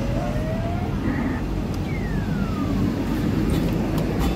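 Steady arcade din of machines and crowd, with a short rising electronic tone at the start and a falling electronic swoop about two seconds in from the game machines.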